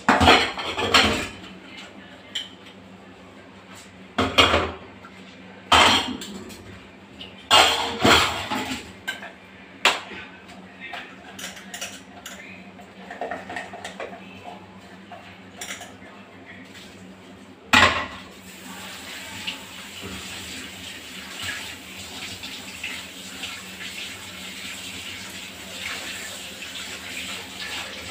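Steel utensils and dishes clattering against each other and a stainless steel sink as they are washed, with several sharp knocks. About two-thirds of the way through, a tap starts running steadily into the sink.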